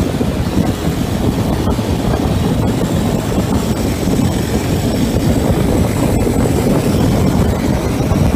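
Steady traffic noise from a moving street, with engines and tyres on the road and a low wind rumble on the microphone.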